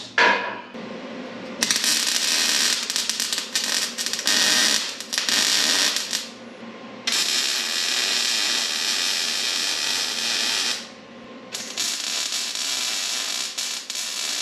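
Wire-feed MIG welder arc crackling as it lays beads on steel bumper tubing, in three runs of a few seconds each with short pauses between.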